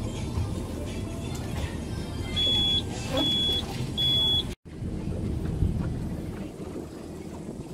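A boat depth finder's shallow-water alarm beeps three times, short high electronic tones under a second apart, over the boat's engine running near idle. The alarm is sounding again even though its threshold was set to 1 foot.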